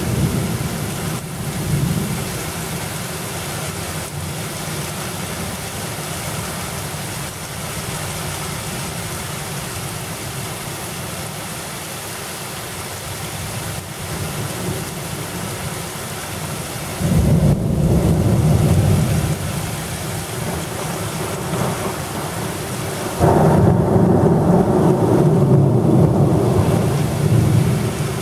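Steady heavy rain with thunder. A low rumble swells suddenly about two-thirds of the way through and lasts a couple of seconds. A louder one starts abruptly near the end and rolls on for several seconds.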